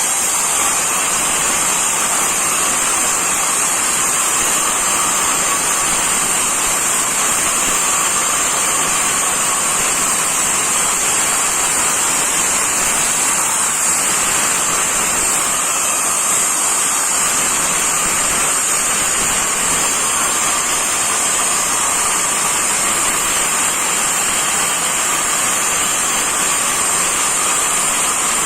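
Angle grinder cutting into masonry, running steadily with a constant high whine over its grinding noise.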